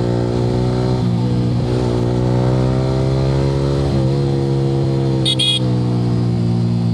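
Yamaha R15 V3's 155 cc single-cylinder engine running at a steady cruising speed through an Akrapovic R9 aftermarket exhaust, its note holding fairly even with a slight dip about four seconds in. A horn gives two short beeps about five seconds in.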